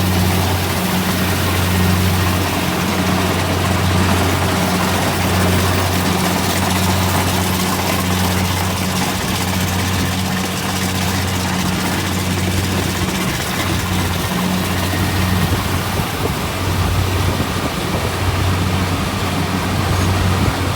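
Rice combine harvester running steadily: a constant low engine drone with a wide rushing mechanical noise over it.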